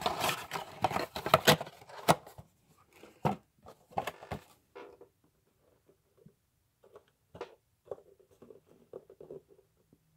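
Empty cardboard blaster box of trading cards being handled: a dense run of rustling and scraping cardboard for about the first two seconds, then scattered light taps and knocks as it is moved and set down.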